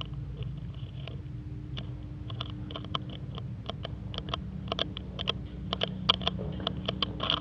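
Irregular sharp clicks and knocks over a steady low hum, the clicks coming more often about halfway through.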